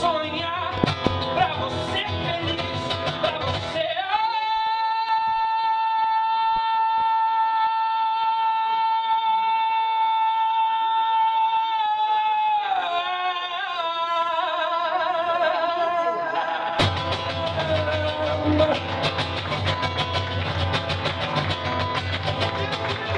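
A man singing live to his own acoustic guitar. A few seconds in he holds one long high note for about eight seconds while the guitar is silent, then slides down from it, and the guitar strumming comes back in suddenly.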